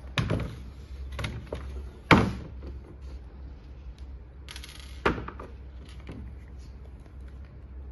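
Handling knocks at a workbench as a cordless drill and small screws are picked up and set down on the tabletop: several sharp knocks, the loudest about two seconds in, and a brief rattle just before another knock near five seconds, over a steady low hum.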